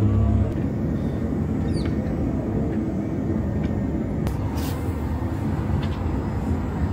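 Steady low outdoor rumble of city ambience. A short chirp falls in pitch about two seconds in, and a couple of faint clicks follow a few seconds later.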